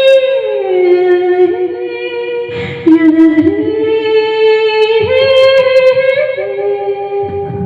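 Female voice singing long, wordless held notes over a music backing, with slow glides between pitches and a short break near the middle.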